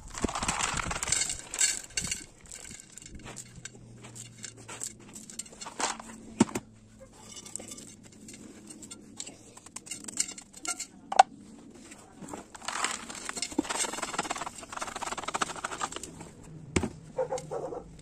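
Potting soil and gravel being handled and pressed into a pot around a jade plant's base: bursts of gritty rustling and scraping, with a few sharp knocks.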